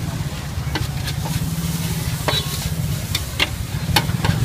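Noodles stir-fried in a large shallow wok, sizzling lightly, with irregular sharp clicks and scrapes of the utensil against the metal pan. A steady low rumble runs underneath.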